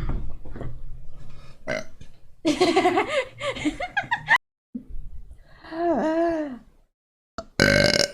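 A person burping: a long, low belch whose pitch wavers for about four seconds, then a second, shorter burp with a bending pitch, and a short, loud burst near the end.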